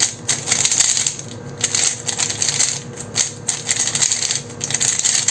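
Plastic speedcube being turned quickly by hand: a rapid, continuous clatter of layers clicking past each other.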